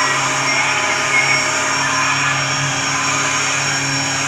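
Electric vacuum cleaner running steadily: an even rush of air with a constant low motor hum and a thin high whine.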